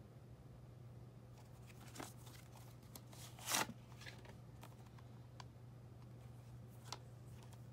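Handling noise from a plastic Blu-ray case in a cardboard slipcover: scattered light clicks and rustles, with one louder rustle lasting about half a second, about three and a half seconds in.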